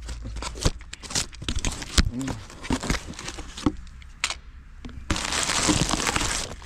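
Plastic packaging crinkling and crackling in irregular snaps as a compressed dog bed is unwrapped, then a steady rush of rustling for the last second and a half.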